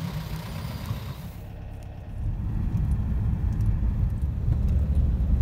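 VW bus engine and road rumble heard from inside while driving, a steady low rumble that grows louder about two seconds in.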